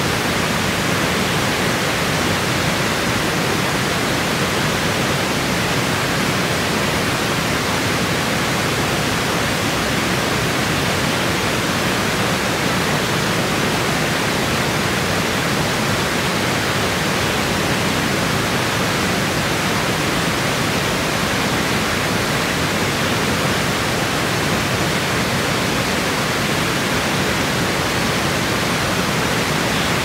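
Water rushing over a low concrete weir and across rocks: a steady, unbroken rushing with no change over the whole stretch.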